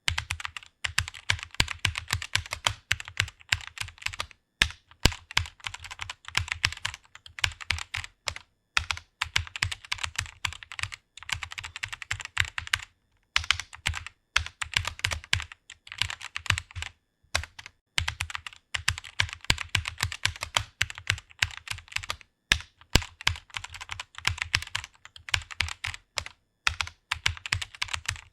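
Computer keyboard being typed on quickly, a steady stream of key clicks broken by several short pauses.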